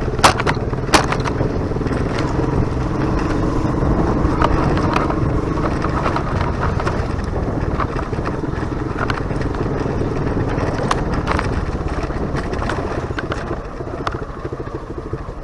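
Motorcycle engine running steadily while riding, with two sharp clicks about a second in.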